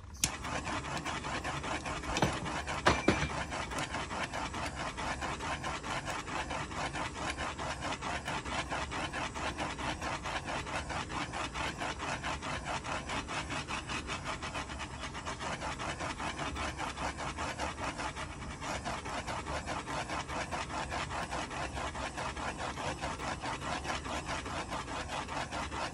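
Tumbler spinner turning an epoxy-coated tumbler, giving a steady rhythmic rubbing whir that pulses several times a second, with a couple of sharp clicks about two to three seconds in.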